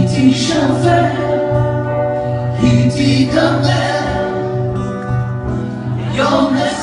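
A song performed live: a man and a woman singing together in held, drawn-out notes, accompanied by acoustic guitar and keyboard.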